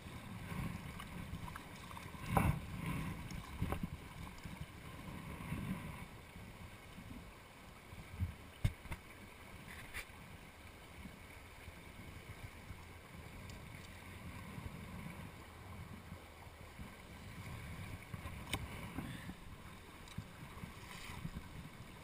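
Mountain torrent rushing steadily over stones, with a few sharp clicks and knocks over it, the loudest about two seconds in.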